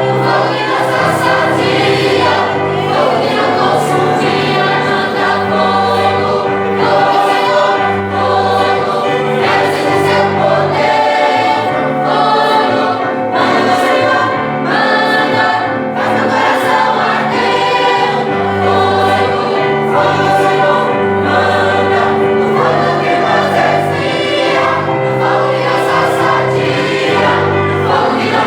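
A choir singing a Christian worship song over instrumental accompaniment with a moving bass line.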